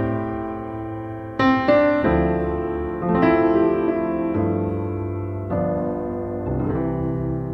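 Background piano music: chords struck about every one to two seconds, each left to ring and fade.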